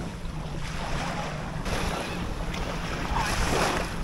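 Wind buffeting the microphone over water lapping around a small inflatable boat, with a steady low rumble and a louder rush of noise about three seconds in.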